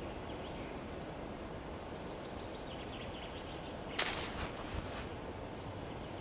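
Quiet outdoor ambience with faint bird chirps, broken about four seconds in by one sudden, short, sharp noise, followed by a couple of small clicks.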